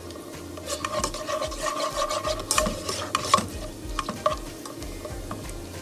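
A plastic spatula scraping and stirring across a nonstick frying pan while chopped garlic sizzles in oil. The strokes come in a run from about a second in to a little past four seconds.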